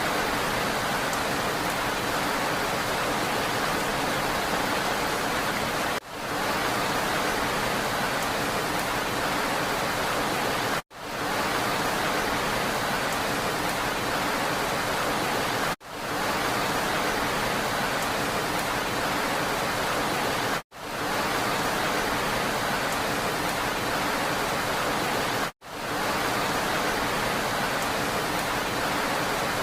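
Steady hiss of falling rain, a short recording looped: it cuts out for an instant about every five seconds and swells straight back.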